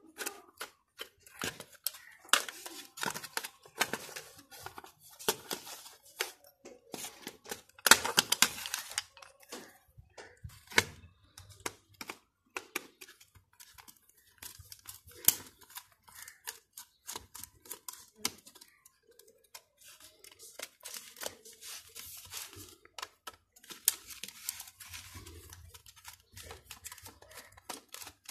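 Screwdriver and plastic juicer base being handled as it is unscrewed and opened. Irregular clicks, taps, rattles and short scrapes, with a louder cluster of clicks and scraping around eight seconds in.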